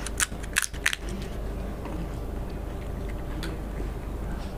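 Crisp fried fuchka (panipuri) shells cracking and crunching, four sharp crunches in quick succession within the first second, then a steady background noise.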